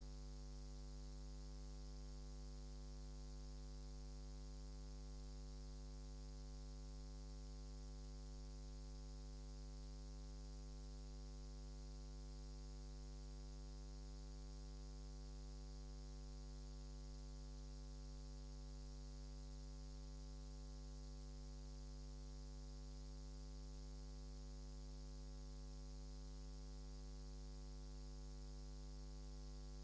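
Steady electrical mains hum at about 50 Hz with a ladder of overtones, over a faint hiss, unchanging throughout.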